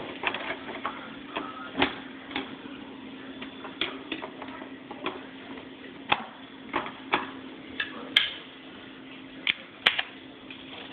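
A running Dolch PAC 486 portable computer, a steady low hum under irregular sharp clicks and ticks that come every half second or so.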